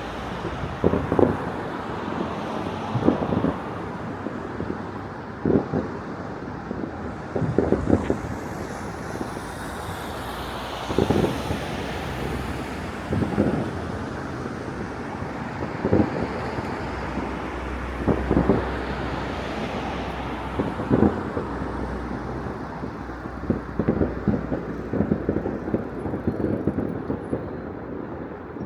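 Distant fireworks going off across a city, a muffled bang with an echoing tail every couple of seconds, over a steady background of traffic noise.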